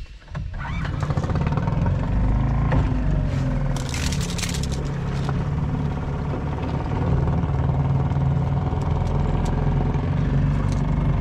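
A boat engine running steadily, coming in suddenly about half a second in, with a brief hiss about four seconds in.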